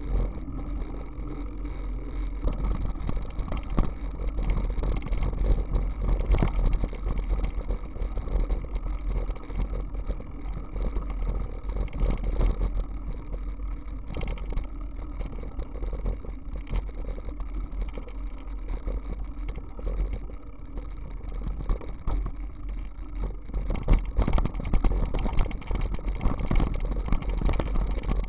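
Wind buffeting the microphone of a camera on a moving bicycle, over the rumble of tyres on asphalt and gravel, with frequent short jolts and knocks from the rough surface.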